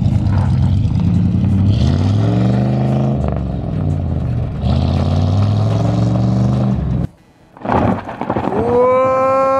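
1994 Chevrolet 2500 pickup's engine revving hard as the truck accelerates away, its pitch climbing, dropping at a gear change about three seconds in, then climbing again before cutting off abruptly about seven seconds in. Near the end a short high tone rises and then holds.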